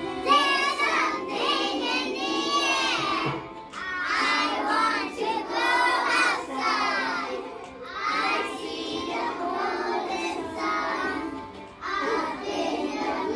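A child singing a song in phrases, with short breaks between the phrases.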